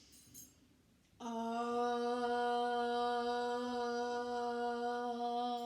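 A woman's voice, after a short breath in, holds one long vocal tone at a single steady pitch for about four and a half seconds as a drawn-out, sounded out-breath, fading near the end.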